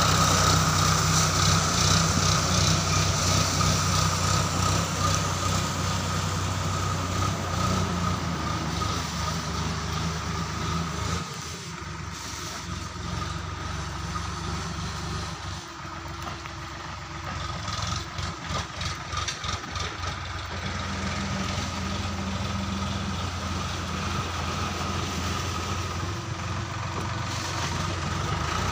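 Tractor engine running steadily in the distance, with a steady whine above its hum. It drops away about a third of the way in and picks up again over the last third.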